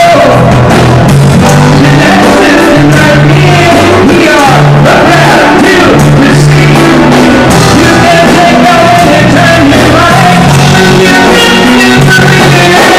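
A live band playing loud, upbeat rock music on electric guitar, keyboards and drums over a bass line that steps from note to note, with a singing voice.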